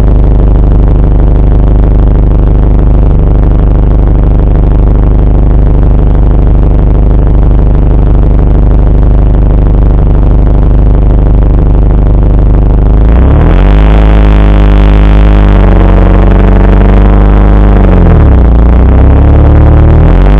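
Mitsubishi Lancer Evolution wagon's turbocharged 4G63 four-cylinder running loud through an exhaust with its silencer removed. The revs hold steady at first, rise about thirteen seconds in and hold, drop a few seconds later, then climb again near the end.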